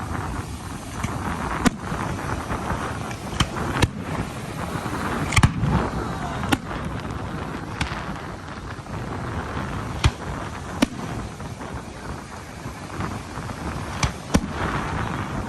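Fireworks going off: about a dozen sharp bangs at irregular intervals over a steady noisy background.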